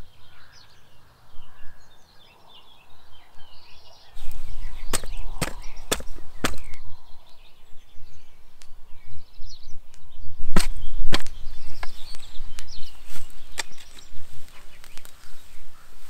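Spade cutting into turf and soil: a series of sharp chops, irregularly spaced, starting about four seconds in, over a low rumble.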